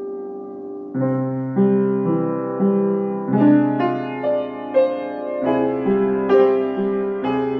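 Solo piano playing: a held chord dies away, then about a second in a new passage begins, with chords changing about twice a second over a low bass note struck anew every couple of seconds.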